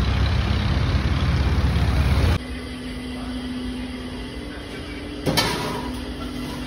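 Road traffic rumble, heavy and low, that cuts off after about two seconds. It gives way to a quieter room with a steady low hum and a single clatter about five seconds in.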